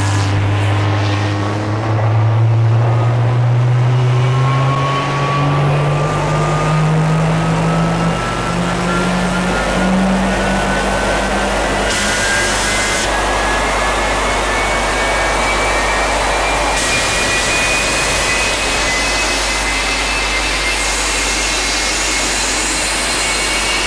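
GTU 1000 megawatt-class gas turbine spooling up after light-off: a whine climbing steadily in pitch over a loud rush of air and combustion, with a low hum rising alongside it during the first half.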